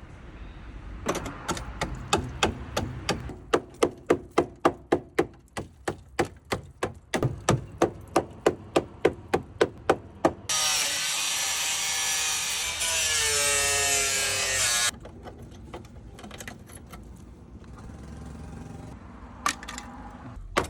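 Repeated hammer strikes on metal body panel, about two to three a second for roughly ten seconds, then a loud power tool runs for about four seconds and cuts off suddenly. A few scattered knocks follow near the end.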